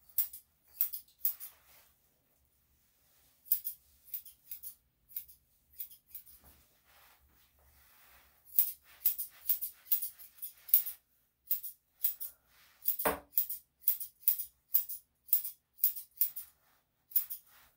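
Steel grooming scissors snipping through a Yorkshire Terrier cross's fur in short crisp snips. They come sparse and irregular at first, then in quicker runs of about two to three a second from about eight seconds in. One louder click comes about thirteen seconds in.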